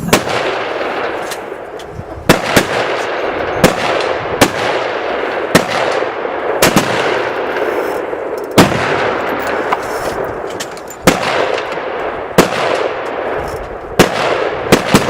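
Gunshots from several shooters firing at will: about a dozen single sharp reports at uneven intervals, each ringing briefly.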